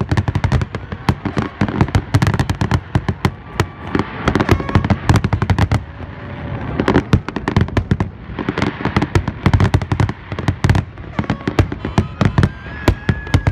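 Aerial fireworks display: a dense, continuous barrage of shell bursts, many sharp bangs a second with no let-up.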